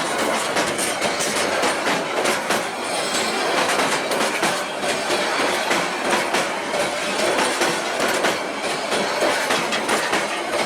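Passenger train carriages rolling past at speed, wheels clattering with a steady clickety-clack over the rail joints.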